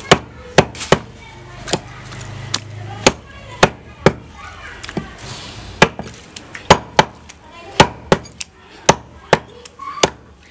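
Butcher's cleaver chopping goat meat on a wooden log chopping block: a string of sharp, irregular chopping knocks, roughly two a second.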